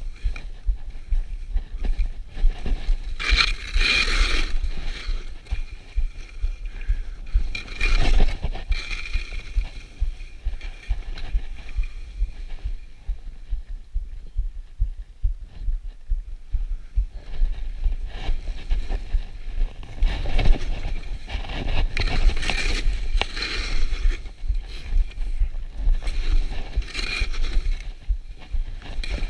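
Skis scraping and hissing across snow in a series of turns, with wind buffeting the microphone as a steady low rumble underneath.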